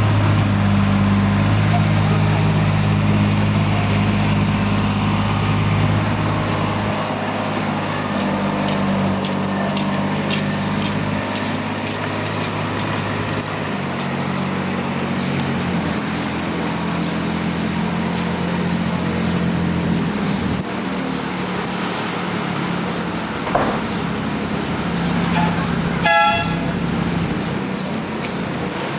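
An engine running steadily, its note dropping and shifting several times, with one short horn toot near the end.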